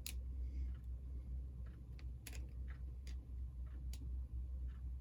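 Irregular small clicks and taps of model-locomotive parts being handled and pressed together, over a steady low hum.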